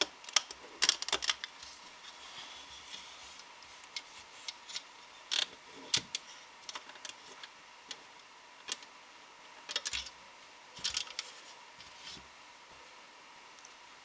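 Small sharp clicks and taps of a metal crochet hook and rubber loom bands against a clear plastic peg loom as the bands are lifted and moved, coming in irregular clusters and dying away near the end.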